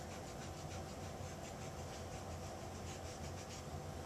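Faint, quick rubbing strokes of a paint applicator on a photographic print, about four a second, as green oil paint is worked into the picture; they stop shortly before the end. A steady low hum runs underneath.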